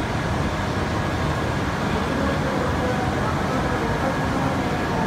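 Steady hum and rumble of a busy shinkansen platform beside a standing E7 series train, with indistinct voices of people mixed in.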